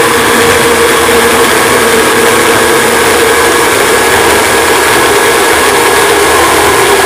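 Corded electric drill driving a 4-inch mini chainsaw attachment, running steadily and loudly as its chain cuts through an 18 mm plywood board.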